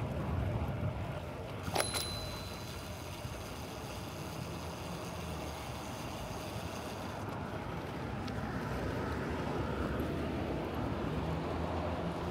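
Road and traffic noise heard from a bicycle riding through city streets, with a steady low rumble. About two seconds in there is a single sharp metallic click with a brief ring, and a low steady hum comes in near the end.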